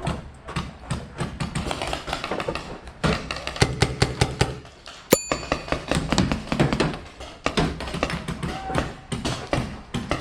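Paintball markers firing, an irregular run of sharp pops and taps. About five seconds in comes a single sharp click with a high ringing tone.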